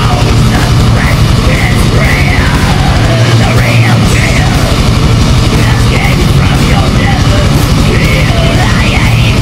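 Loud, heavily distorted heavy music with yelled vocals over a steady low drone.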